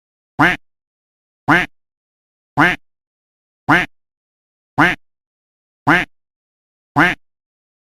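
A duck quacking: one short, nasal quack repeated about once a second, seven times, each one identical to the last, with complete silence between.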